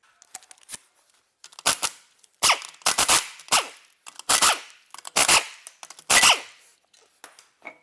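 Pneumatic impact wrench firing in about eight short bursts, taking off a wheel's lug nuts, with small clicks and knocks between the bursts.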